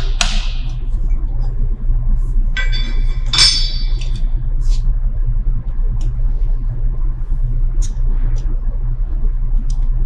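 A steady low hum throughout, with a ringing metallic clink of a wrench against the saw blade's arbor hardware about three seconds in, followed by a few light ticks.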